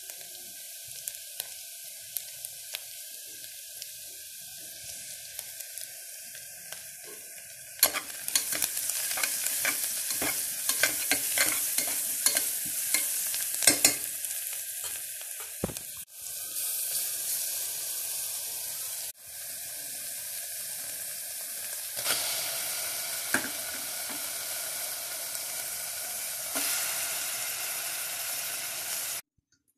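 Sliced onions sizzling as they fry in a pressure cooker pot, a steady hiss. From about 8 to 14 seconds a steel ladle stirs them, adding a run of scraping clicks and knocks against the pot.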